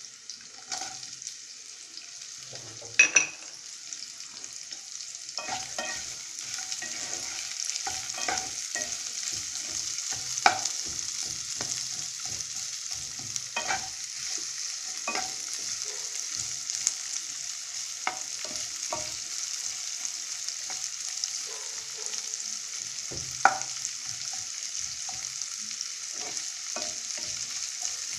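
Potato cubes and chopped onion sizzling in hot mustard oil in a nonstick kadai, with a steady frying hiss. A wooden spatula stirs and scrapes the pan at irregular moments, with a few sharper knocks against it.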